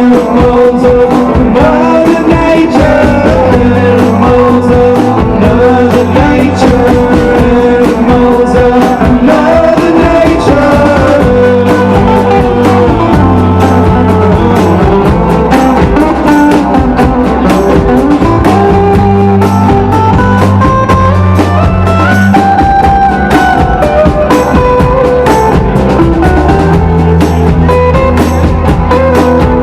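Live rock band playing a song with guitars, bass guitar and drum kit, a melody line moving over a steady beat.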